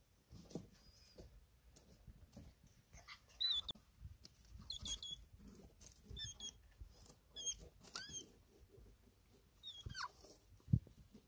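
Hedgehog making short, high, wavering squeaky chirps in bursts every second or so, with soft snuffling and rustling in between: the sound a male hedgehog makes at the scent of his mate. One low thump near the end.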